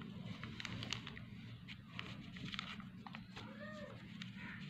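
Sheet of printer paper crinkling and clicking as it is creased and folded into an origami boat, over a steady low hum. About three and a half seconds in, a short rising-then-falling call sounds in the background.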